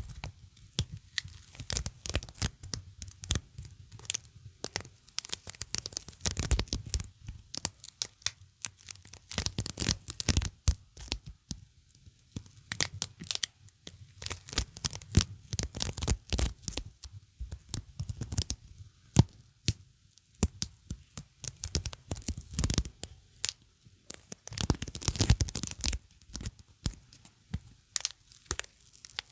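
A sticky surface being pressed and peeled apart close to the microphone, giving dense crackling, tearing clicks that come in irregular clusters with brief lulls.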